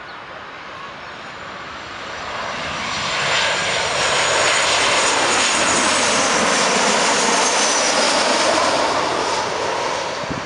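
Boeing 737-700 jet on final approach passing low overhead, its twin CFM56-7B turbofans heard as a steady rush of engine noise. The noise builds over the first few seconds, holds loud, and starts to fade near the end, with a high whine that slowly falls in pitch as it goes by.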